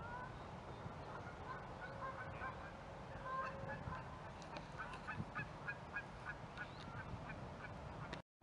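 Geese honking: a long run of short, repeated calls, several a second, over a steady low background rumble. The sound cuts out abruptly just before the end.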